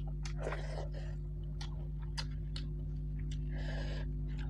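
Close-miked chewing, with short wet mouth clicks and smacks scattered through, over a steady low hum.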